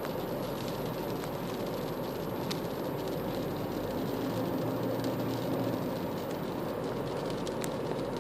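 Freight train cars rolling past on the track: a steady rumble with a few sharp clicks from the wheels.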